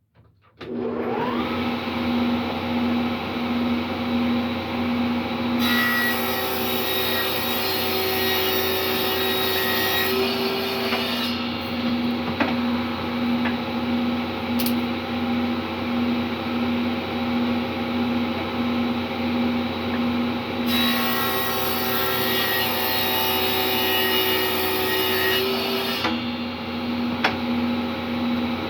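Table saw starting up and running steadily, with two rip cuts through cedar planks, about six and five seconds long, trimming the tongues off the board edges.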